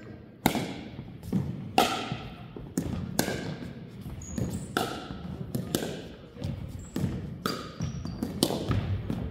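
Pickleball rally: the sharp pops of paddles striking the hard plastic ball, mixed with the ball bouncing on the hardwood court, about a dozen in quick succession. They come roughly one every half second, each ringing briefly and echoing in the large gym.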